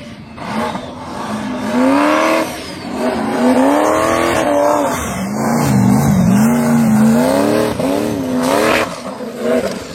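Car engine revving up and down repeatedly, its pitch climbing and dropping about once a second, as on a timed competition run.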